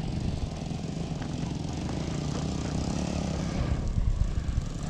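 Motorbike engine running steadily, with wind buffeting the microphone.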